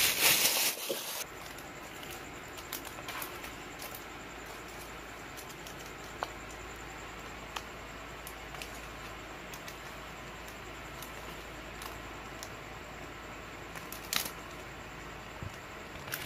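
Clear plastic stamp sleeves crinkling as they are handled, loudest in the first second, then steady hiss with a few light clicks and rustles from the plastic.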